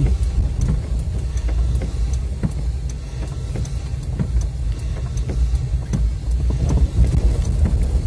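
A car driving on wet city streets, heard from inside the cabin: a steady low rumble of engine and tyres, with faint light ticks scattered throughout.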